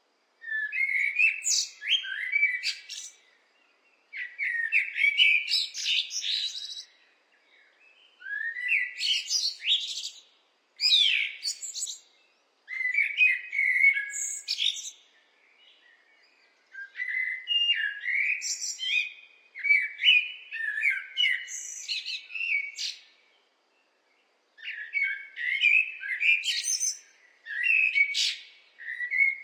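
Blackbird singing: repeated warbling phrases of two or three seconds each, separated by short pauses.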